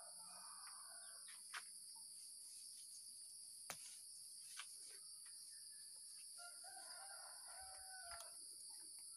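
Faint, distant roosters crowing, once at the start and again about two-thirds of the way through, over a steady high insect drone, with a few small clicks in between.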